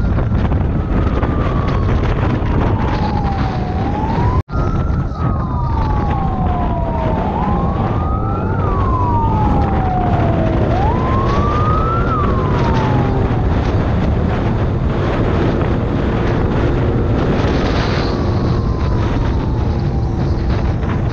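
Siren wailing in repeated rising and falling sweeps over the steady noise of a motorcycle riding at speed. The sound cuts out for an instant about four seconds in. After about two-thirds of the way the sweeps give way to one slower falling wail.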